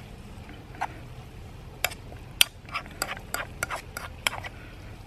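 Metal spoon clinking and scraping against a metal camp frying pan while stirring sauerkraut and sliced corned beef: a dozen or so sharp clinks, most of them from about two seconds in, the loudest near the middle.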